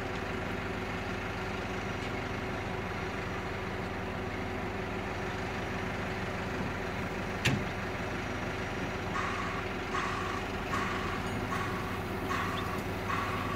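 Hydrema 912ES articulated dump truck's diesel engine idling steadily. About halfway through there is a single sharp, short sound, the loudest moment. From about two-thirds in, the truck's reversing alarm starts beeping, roughly one beep every 0.8 s, as the machine starts to move on the rails.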